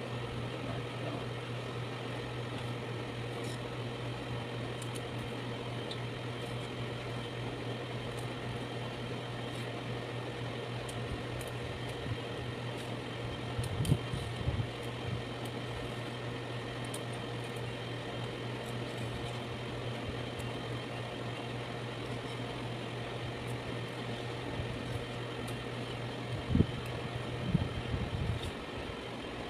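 Steady machine hum, with a few short knocks of a kitchen knife cutting moringa pods about halfway through and again near the end.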